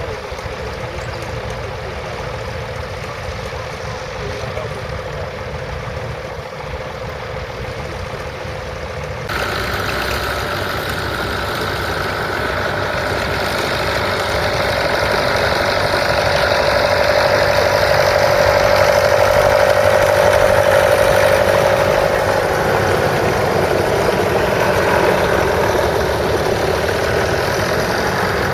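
Vintage crawler tractor engine running steadily. About nine seconds in the sound changes abruptly and becomes louder and brighter, swelling as the crawler draws near and easing off again near the end.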